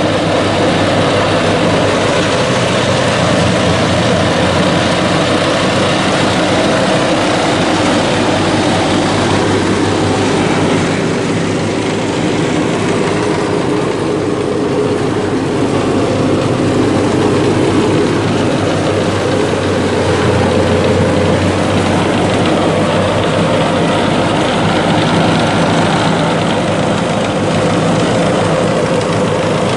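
Baroness crawler flail mower's three-cylinder diesel engine running steadily under load while its Y-blade flail rotor cuts tall grass.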